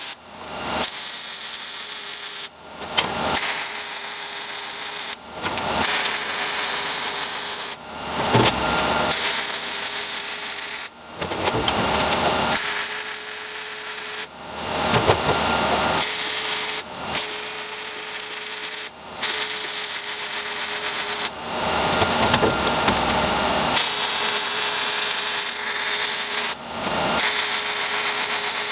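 A handheld power tool running against metal with a harsh grinding noise over a steady whine. It comes in runs of about two to three seconds that cut off sharply and start up again.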